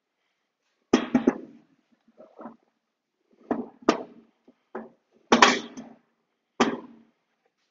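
A run of knocks and clunks as a sliding miter saw on a plywood mounting base is handled and set down onto a Shopsmith's tubes. The loudest knocks come about a second in and near the middle.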